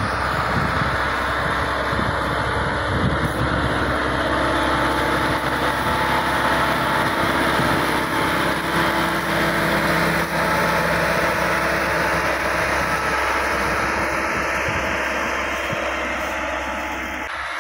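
Massey Ferguson 385 tractor's four-cylinder diesel engine running steadily under load as it pulls a disc harrow through a dry field, fading slightly near the end.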